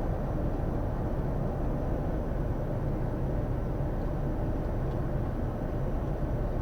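Steady cockpit noise of a Bombardier Challenger 350 business jet on final approach with full flaps: a constant low rumble of airflow and engines.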